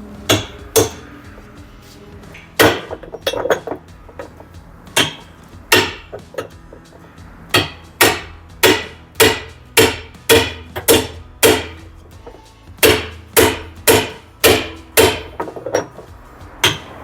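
Hammer blows on a tool to tighten the 38 mm hub nut on a washing machine's inner tub: a few scattered strikes, then a steady run of about two sharp knocks a second from about halfway in.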